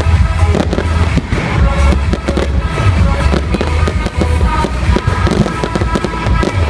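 Fireworks display going off in rapid succession, many sharp pops and bangs from aerial shells and comets, over loud music.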